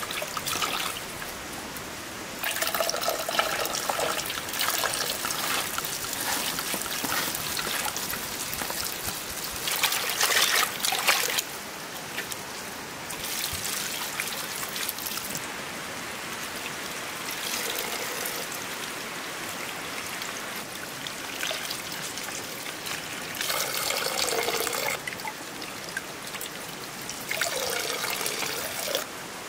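Water poured from a clay jug over green beans in a metal basin, trickling and splashing as hands rub the beans clean. It comes in several separate pours of a few seconds each.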